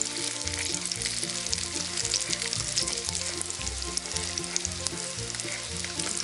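Syrniki (cottage-cheese pancakes) frying in vegetable oil in a pan, a steady sizzle with dense fine crackling.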